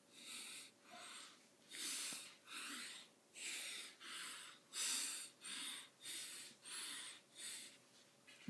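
A person taking quick, noisy breaths through the mouth, about eleven in a row at a steady pace, working up to a burp.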